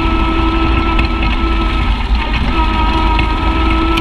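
Side-by-side UTV's engine and drivetrain running steadily as it drives along a bumpy grass trail, over a low rumble. The engine note drops out briefly about halfway through, then comes back.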